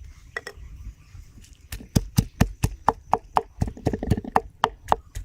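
Knife chopping on a cutting board in a quick, even rhythm of about four strokes a second, starting about two seconds in.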